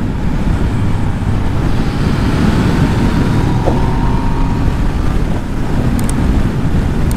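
Heavy wind rushing over the microphone of a motorcycle at riding speed, with the Yamaha MT-09's three-cylinder engine running underneath and its note rising slightly in the middle.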